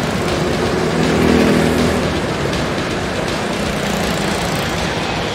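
Go-kart engines running steadily, one engine growing a little louder about a second in.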